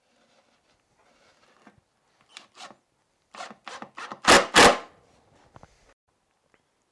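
Wood screws being driven into the timber of a WBC beehive porch and lift: a run of short scraping strokes that grow louder, the two loudest just past the middle, then die away.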